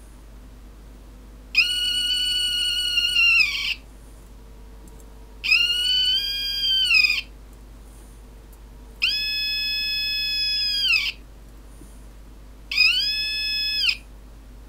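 Satellite finder meter's audible squeal, a high whistling tone that sounds four times, each lasting about one and a half to two seconds and wavering slightly in pitch. Each squeal marks a signal peak as a mug of hot water moves towards the LNB feedhorn, the meter picking up the mug's microwave thermal radiation in a series of peaks and troughs.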